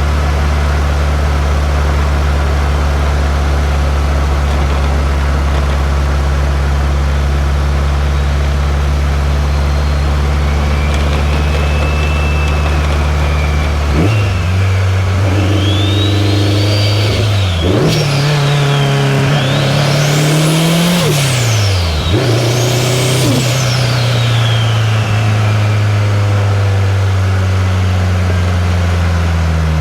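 2003 Subaru WRX's turbocharged flat-four idling steadily, then pulling away about halfway through: the revs climb and drop back twice at gear shifts, with a high whistle rising and falling alongside the revs, before settling to an even cruise.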